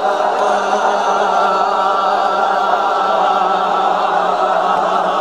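A group of people chanting together on one long held note, many voices blending into a steady, slightly wavering tone.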